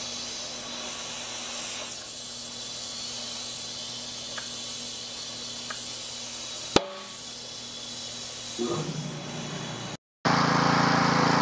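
Compressed air hissing in short spells from an air hose at a tyre, with a single sharp click about seven seconds in. About a second before the end, a gas pressure washer's small engine is running steadily and smoking, with diesel wrongly in its fuel tank.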